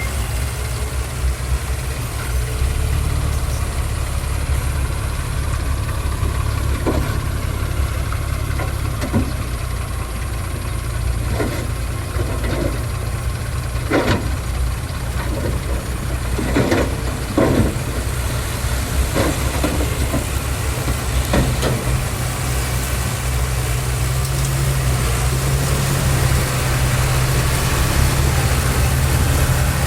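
Heavy diesel construction machinery running steadily, with irregular metallic knocks and clanks through the middle stretch.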